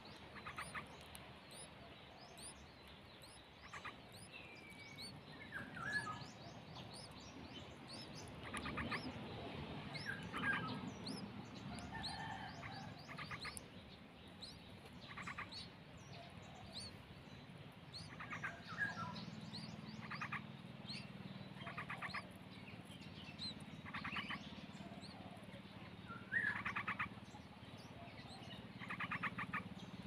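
Small birds chirping: short, rapid trills repeated every second or two, with thin high chirps running through.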